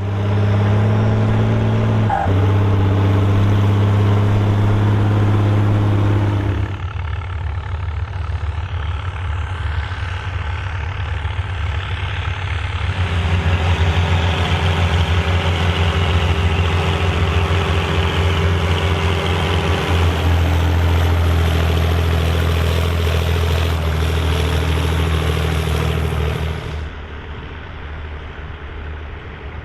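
Volvo BM tractor diesel engines running steadily under load while ploughing. The engine note and loudness change abruptly a few times, about 2, 7, 13 and 27 seconds in.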